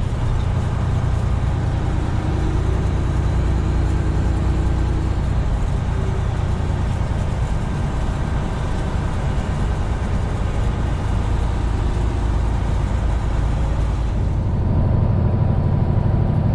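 Semi truck's diesel engine and road noise heard from inside the cab while driving: a steady low drone that grows a little louder and deeper about fourteen seconds in.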